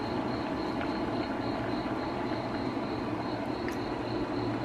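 Induction cooktop running with a steady hum and a thin, high-pitched whine. A few faint light clicks are heard over it.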